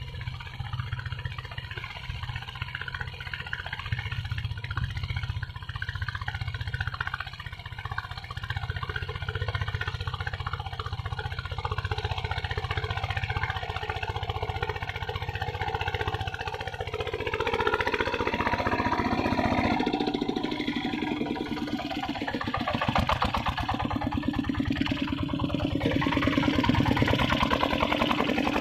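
Engine of a walk-behind hand tractor running steadily while it tills the field, with a fast, even chug. It gets louder a little over halfway through.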